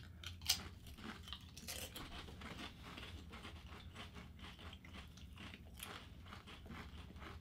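Lay's barbecue potato chips being bitten and chewed: one sharp crunch about half a second in, then a run of small, irregular crunches as the chips are chewed.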